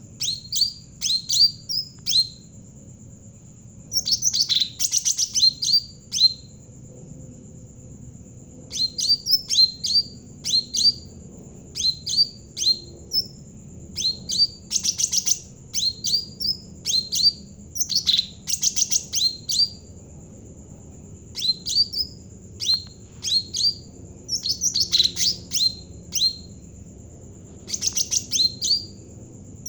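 Cucak ranting jawa songbird singing in full song: bursts of sharp, quick, downward-slurred chirping notes, several to a burst, with short pauses between. A faint steady high whine runs underneath.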